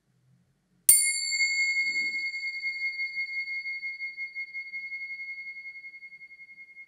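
Tingsha cymbals, a pair of small metal cymbals joined by a strap, struck together once about a second in. They ring with a single high, clear tone that pulses as it slowly fades. The strike signals the end of a guided meditation.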